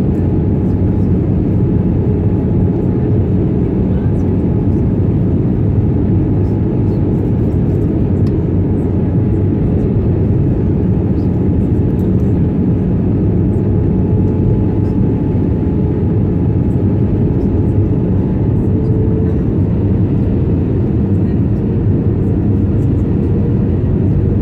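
Airbus A320 cabin noise from a window seat over the wing during descent: a steady drone of engines and airflow. A faint hum tone within it steps up slightly about three quarters of the way through.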